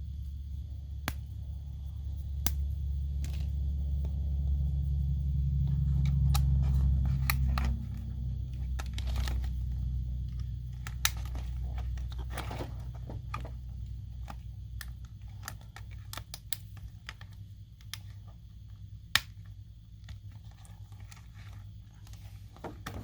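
Small plastic model-car parts being handled and pressed into place: scattered sharp clicks and taps over a low rumble, the rumble swelling for a few seconds before the middle.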